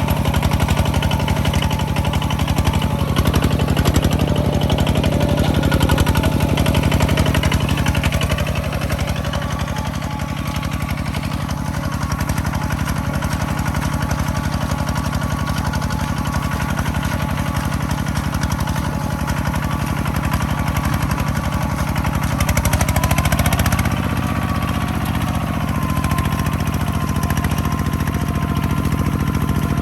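A farm machine's engine running steadily. It drops a little in level about eight seconds in and shifts in pitch about three quarters of the way through.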